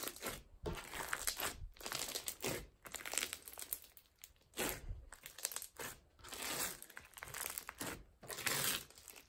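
Hands squeezing and pressing a big batch of floam, slime packed with medium-sized white foam beads, which crunches and crackles in repeated bursts about once a second.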